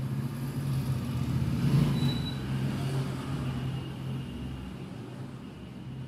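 A motor vehicle's engine running, a steady low hum that grows louder to a peak about two seconds in and then slowly fades.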